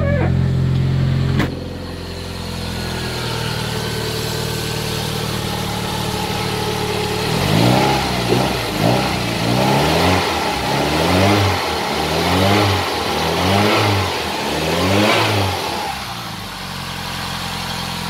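Toyota 3S-GTE turbocharged four-cylinder engine running just after its first start in two years: it idles steadily, then from about seven seconds in it is blipped up and down in about seven quick revs before settling back to idle.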